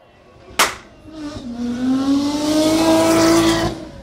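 A sharp hit about half a second in, then a car engine sound effect revving, its pitch slowly rising, which cuts off just before the end.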